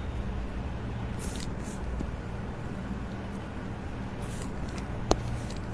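Brief rustles of hands and cloth over a steady low background hum, then one sharp crack about five seconds in: a joint cavitating during a chiropractic adjustment.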